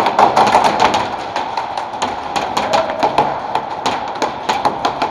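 Airsoft guns firing, with BBs cracking against plywood walls: a rapid, irregular string of sharp taps and cracks, several a second.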